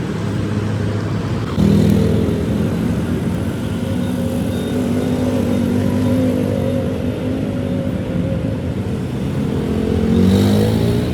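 An engine running steadily. It gets louder about a second and a half in and revs up near the end.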